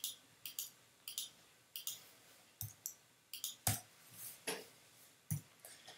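Quiet, scattered clicks of a computer mouse and keyboard, about a dozen single clicks at irregular intervals.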